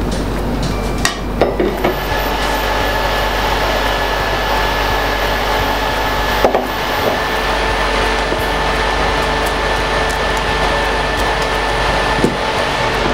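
A slice of bread frying in a little oil in a nonstick pan on an induction cooktop: a steady sizzle, with a few light knocks of the pan.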